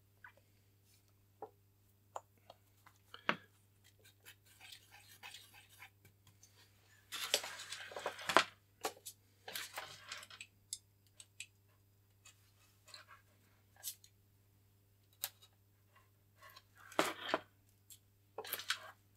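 Small handling noises at a workbench: light clicks, taps and scrapes as a wooden stick works five-minute epoxy into the break of a model glider wing. A longer rustling scrape comes about seven seconds in, with a few shorter ones near the end. A faint steady low hum runs underneath.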